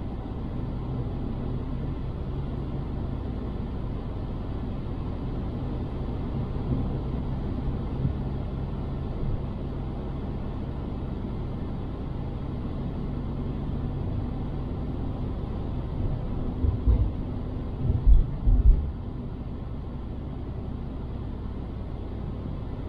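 Car engine and road noise heard from inside the moving car's cabin, a steady low drone. A few low thumps come in a cluster about three-quarters of the way through.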